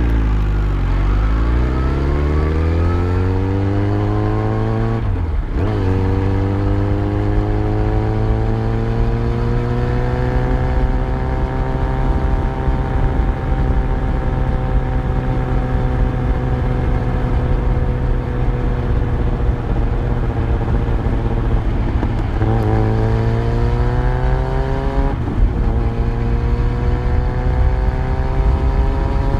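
Yamaha FZ1's inline-four engine heard from the bike while riding. The engine note climbs under acceleration and breaks for an upshift about five seconds in. It then holds a steady cruise before climbing again and shifting up once more near the end.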